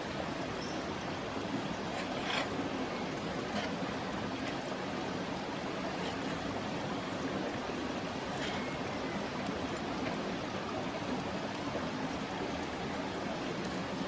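Shallow stream running steadily over rocks, with a few faint knocks of a knife cutting through chicken wing onto a wooden cutting board.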